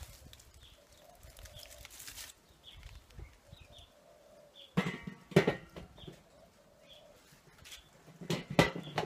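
Steel lid of a bullet-style charcoal smoker clanking as it is handled and set back on the smoker body. A cluster of sharp metallic clanks with a short ring comes about five seconds in, and another comes near the end.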